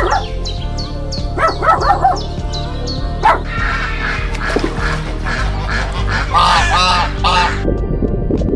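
Repeated short animal calls over steady background music.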